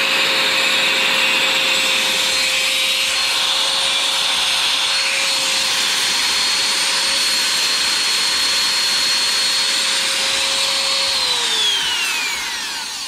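Bosch GKF 600 600-watt trim router running with no load, a steady high motor whine. About eleven seconds in it is switched off and spins down, the whine falling in pitch as it fades.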